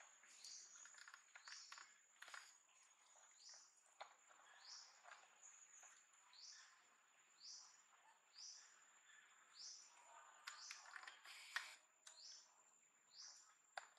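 Faint bird call: a short high chirp repeated about once a second, over a steady thin high whine, with a few soft taps and rustles, the sharpest near the end.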